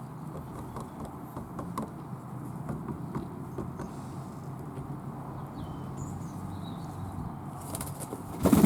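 Fantail doves moving about, with light scattered taps and scuffs over a low steady hum, and a brief loud rustling burst near the end.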